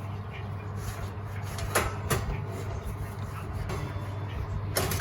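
A few sharp knocks and clatters of kitchen items being handled, about two seconds in and again near the end, over a steady low hum.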